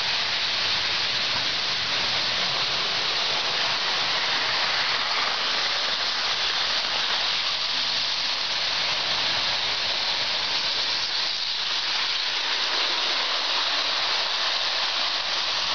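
Lionel O gauge electric toy trains running on the layout's track: a steady whirring hiss of wheels on metal rails and motors, with no clear clicks or rhythm.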